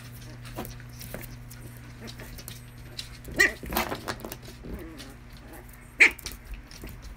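Small dogs at play: a puppy and a small adult dog tussling, with two short, sharp yaps, about three and a half and six seconds in, and lighter scuffling sounds between them. A steady low hum runs underneath.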